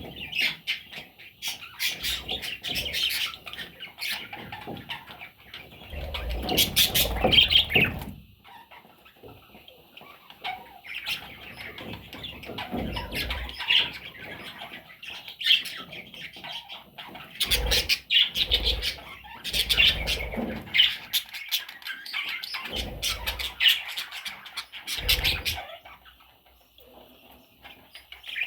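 Budgerigars chirping and chattering in a flock, with several short bursts of wing flapping.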